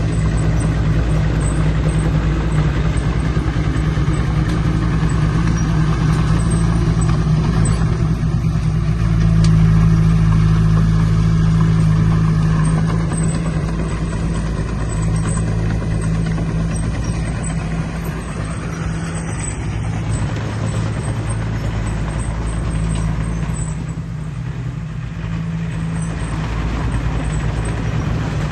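Heavy diesel engine of earthmoving machinery running steadily. It grows louder about ten seconds in and eases somewhat later on.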